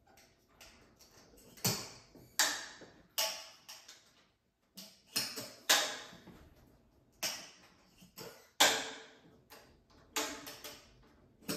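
Stainless steel fermenter lid being fitted and latched: about a dozen sharp metallic clicks and taps at uneven intervals, each ringing briefly.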